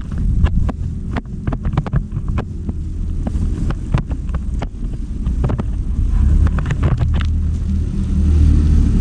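A heavy machine's engine running steadily, with scattered sharp knocks and clinks over it. The engine grows louder about six seconds in.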